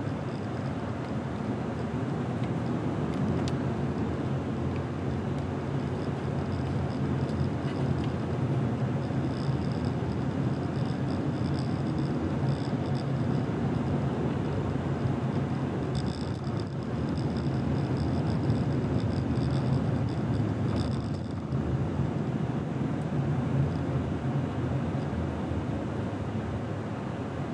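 A car driving, with steady road and tyre noise and a low engine rumble. A faint high-pitched whine comes and goes through the middle stretch.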